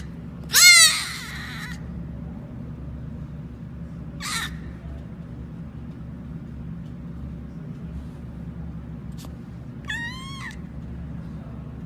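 An animal calling three times: a loud drawn-out cry about half a second in, a short call around four seconds in, and another cry near the end, over a steady low hum.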